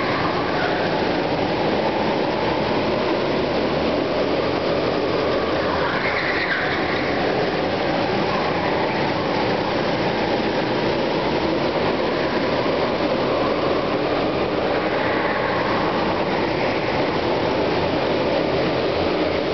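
Several go-kart engines running together around an indoor track, a steady dense drone inside a large hall, with short squeals now and then about six seconds in and again later.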